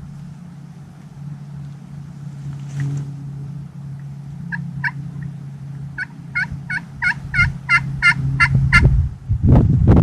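Wild turkey yelping: two single notes, then a quick run of about a dozen yelps, roughly four a second. A steady low hum lies underneath, and a loud low rumble comes near the end.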